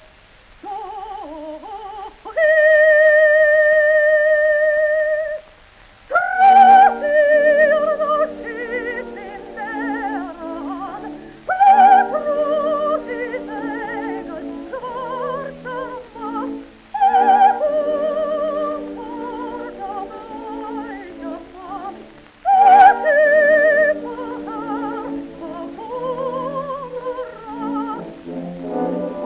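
Soprano singing an operatic aria with orchestral accompaniment. A long held note with wide vibrato comes a few seconds in, then phrases that open with loud, sharp accents about every five and a half seconds.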